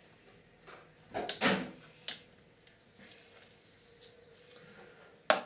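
Clicks and a short scraping clatter of a hand tool and parts being worked inside a VCR's metal chassis: the loudest a scrape a little over a second in, then a sharp click about two seconds in and another near the end.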